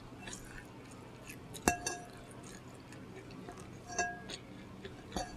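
Two sharp clinks of hard objects about two seconds apart, each with a short ringing tone, over a faint background.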